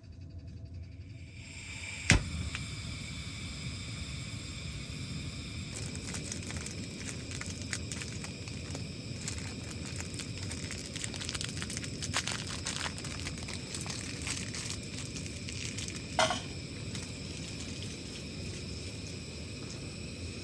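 Steady sizzling and crackling of food cooking over a wood fire, with many small scattered crackles, a sharp knock about two seconds in and a brief swishing sound near the end.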